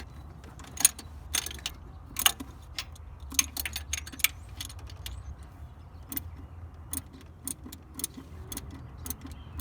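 Irregular metallic clicks and clinks of tools and metal parts being handled, with a few sharper knocks, during work on a car's clutch hydraulics.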